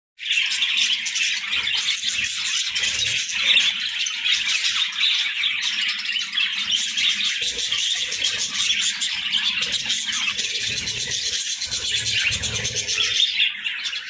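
A flock of budgerigars chattering and chirping continuously, many birds calling over one another.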